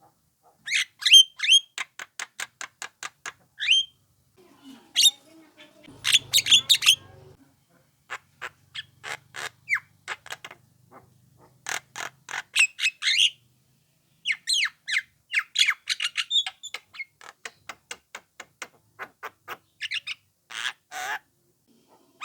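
Young Javan myna calling, used as a lure call: harsh squawks mixed with rapid runs of short clicking notes, in bursts separated by brief pauses.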